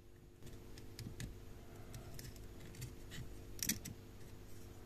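Faint small clicks and taps of tools being handled on a circuit board at a soldering bench, the loudest about three and a half seconds in, over a steady low hum.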